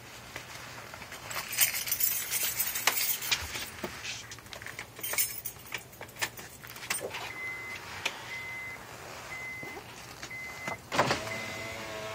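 Honda Accord's power side mirror and window being tested from inside the car: small electric motors whir in short bursts. From about seven seconds in, an electronic chime beeps about once a second. Near the end a louder motor starts with a steady hum, as the door window moves.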